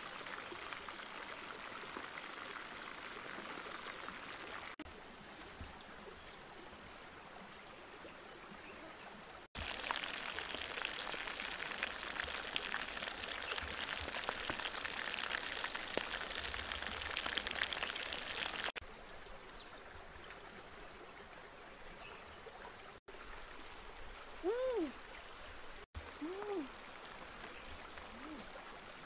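Whole chicken frying in a pan of hot oil, a dense sizzle and crackle for about nine seconds in the middle. Before and after it, the steady wash of a shallow stream running over rocks, with two short sounds that rise and fall in pitch near the end.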